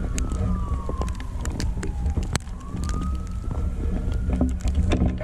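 A siren wailing, slowly falling in pitch, then rising and falling again, over low wind rumble on the microphone and scattered sharp clicks.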